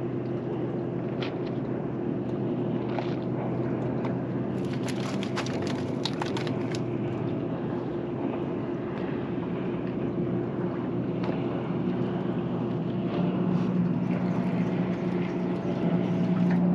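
Steady hum of a boat's engine running, with a cluster of sharp clicks and rattles about five seconds in; near the end the hum deepens and grows louder.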